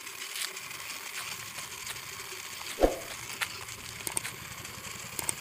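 Small battery-powered toy car running over gravel and stones: a steady hiss with scattered clicks, and a single thump about three seconds in.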